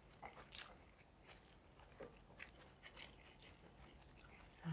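Faint chewing and mouth sounds of people eating, with a few short light clicks of a metal spoon in a ceramic bowl.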